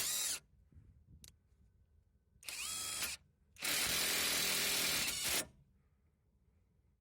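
AutoJare B1803 brushless half-inch cordless impact wrench hammering in short bursts. A burst cuts off just after the start. A short one follows about two and a half seconds in with the motor whine rising, then a longer one of about two seconds.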